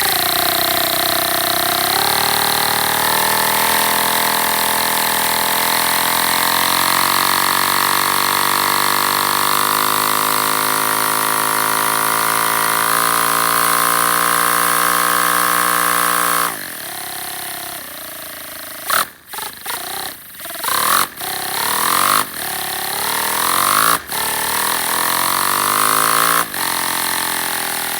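Homemade single-cylinder paper air engine running fast on compressed air, a steady pitched buzz that climbs slightly in pitch. About two-thirds of the way through it cuts out suddenly, then runs in short stop-start spurts, speeding up and slowing down.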